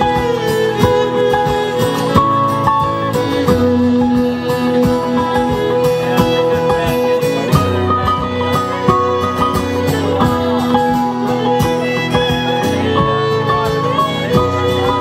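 Instrumental break of a folk song played by a small acoustic band: fiddle and guitar carrying the tune over a steady strummed rhythm, with long held reedy notes that fit the squeezeboxes the band's name refers to.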